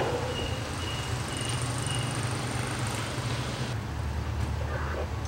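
Steady low engine rumble, as of an idling vehicle, with a thin high beep repeating about twice a second through the first half. A sharp click comes at the start, and the sound changes abruptly about two-thirds through, where the rumble deepens.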